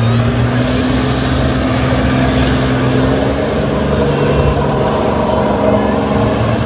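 A steady motor hum with several held tones, and a short burst of hissing about a second in.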